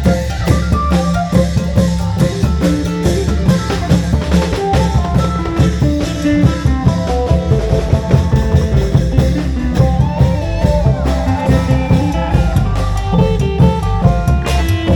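Isan folk band music: klong yao long drums and percussion beat a steady, dense rhythm under a plucked phin lute melody.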